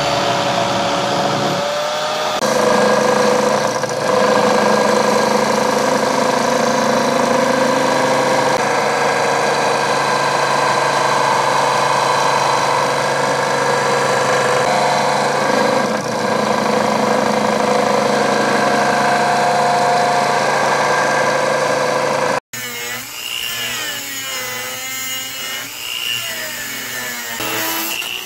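Electric grinders working the steel of an old circular saw blade: a steady whine from an angle grinder and then a belt grinder as the knife blank is ground. After a sudden break about three-quarters of the way through, a small rotary die grinder with a mounted stone takes over, its whine wavering in pitch as it bears on the steel.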